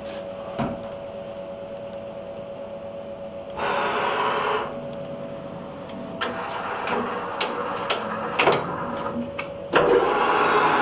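CNC lathe standing with a steady hum, a brief rush of noise about four seconds in and a scatter of sharp clicks. Near the end a louder sliding, scraping noise begins as the orange sliding guard is pulled open.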